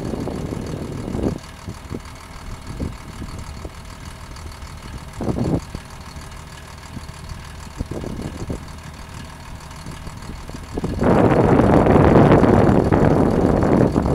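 Volvo A25C articulated dump truck's diesel engine idling steadily as its dump body is lowered. About eleven seconds in, a loud rushing noise takes over and is the loudest sound.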